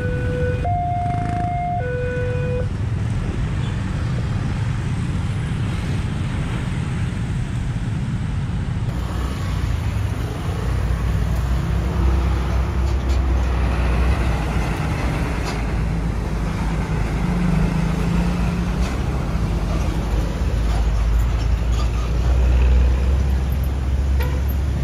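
A level-crossing warning alarm alternates between two electronic tones for the first couple of seconds and then stops. Road traffic follows: motorbikes, cars and buses crossing, with a heavy low bus-engine rumble from about halfway through.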